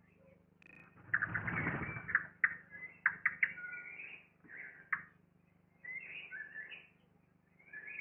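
Eurasian blackbird nestlings begging at the nest with rapid, high-pitched cheeps and squeaks while an adult feeds them, with a burst of rustling in the nest about a second in.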